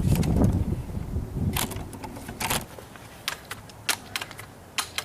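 A multi-pump air rifle being handled and pumped: a low rumble of handling noise, then a string of sharp, irregular clicks and clacks from the pump lever, starting a little over a second in.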